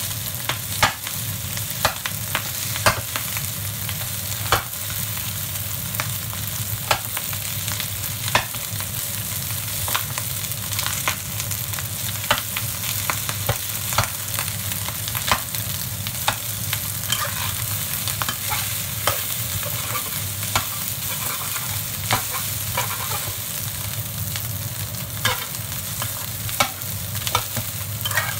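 Metal spatula scraping and knocking against a wok while stir-frying egg fried rice, in irregular strokes over a steady sizzle, with a steady low hum underneath.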